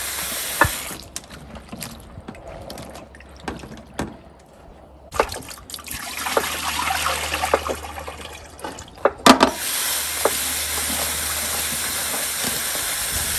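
Kitchen tap running into a bowl of cut okra while hands swish and rub the pieces in the water. For a few seconds the steady stream drops away and the bowl is tipped to pour the rinse water into the sink, with a few sharp knocks about nine seconds in before the tap runs steadily again.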